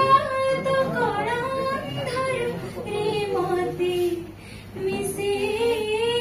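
A young woman singing solo into a handheld microphone, holding long wavering notes, with a brief break for breath about four seconds in.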